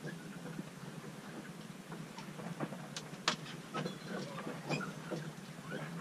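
Cabin of a sailboat under way at sea: a steady low hum with scattered small clicks, knocks and creaks from the boat's fittings and gear, the sharpest click a little past halfway.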